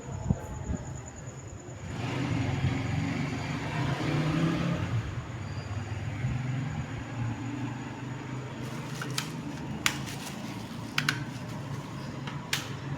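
A heavy engine running steadily, its low rumble growing louder about two seconds in, with several sharp clicks or knocks in the last few seconds.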